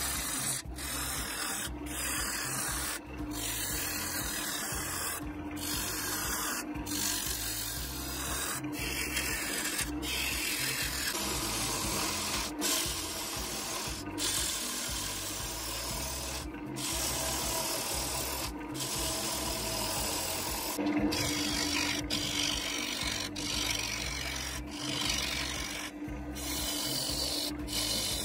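Bowl gouge cutting the inside of a spinning Chinese elm bowl on a wood lathe, peeling off shavings: a steady scraping cut with short breaks.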